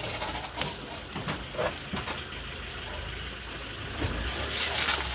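The engine of the vehicle hauling a livestock trailer is running with a low rumble that grows louder about four seconds in. A few scattered knocks and clicks come in the first two seconds.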